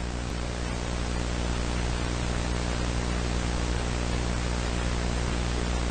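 Steady static hiss with a low electrical hum underneath, the tape-noise effect of an analog-horror animation.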